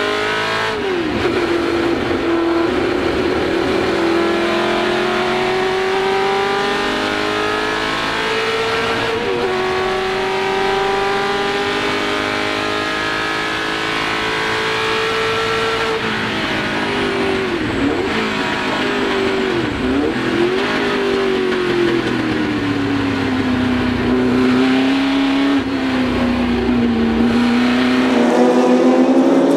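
Ford GT40 Mk1's V8 racing engine heard from inside the cockpit under full throttle. The pitch climbs slowly through long pulls, broken by gear changes about a second and about nine seconds in. From about sixteen seconds the revs drop with short downshift blips, then the engine pulls hard again near the end.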